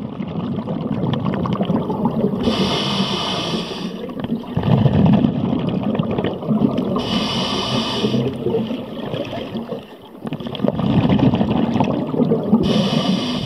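Scuba diver breathing through the second-stage regulator of an Ocean Reef Neptune Space full-face mask underwater. About three hissing inhalations come through, each followed by a longer gurgling rush of exhaled bubbles.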